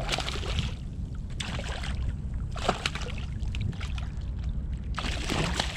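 Water splashing and sloshing against a kayak in four short bursts, over a steady low rumble.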